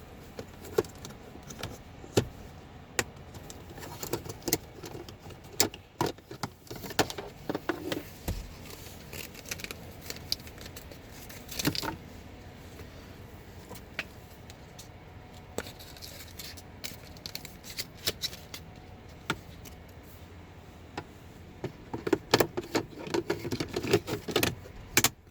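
Scattered plastic clicks, taps and rattles from handling the cabin air filter and its housing, with a dense run of them near the end.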